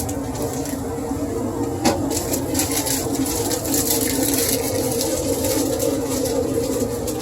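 Newly installed 80% gas furnace running: a steady hum from its fans and burners, with scattered light clicks and one sharper click about two seconds in.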